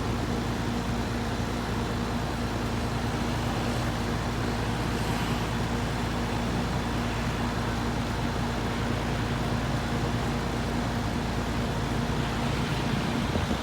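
Trane XR13 central air conditioner's outdoor unit running steadily: compressor hum with a low steady tone under the rush of the condenser fan.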